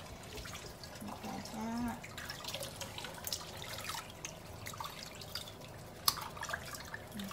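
Water splashing and dripping in a shallow sink bath as hands scoop and rub water over a wet Chihuahua puppy, in irregular small splashes and drips, with one sharp tap about six seconds in.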